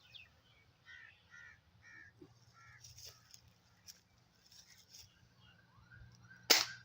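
Birds giving short, repeated calls, then one sharp, loud crack near the end: the shot of a Gamo air rifle.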